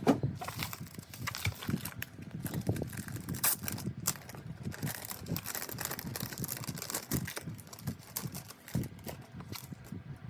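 Packaging being handled: irregular crinkling, rustling and small clicks and taps, with no steady rhythm.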